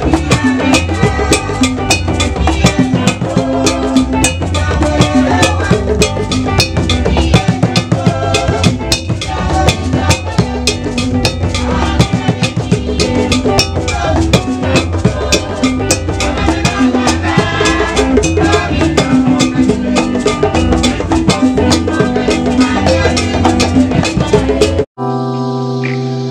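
Background music with a busy drum and percussion beat. Near the end it cuts off abruptly and a held chord rings on.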